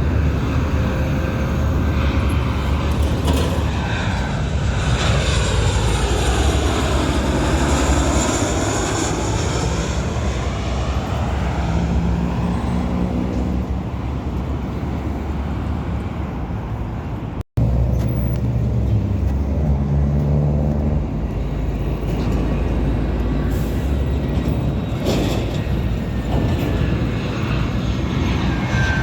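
Jet airliner passing low overhead on its landing approach: a loud, steady engine rush with a sweeping, phasing tone as it goes over. The sound cuts out for an instant about 17 seconds in, then a steady rumble continues.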